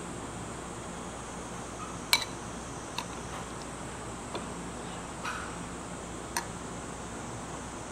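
Tableware clinking: about five sharp, separate clinks and taps, the loudest about two seconds in, over a steady background hiss.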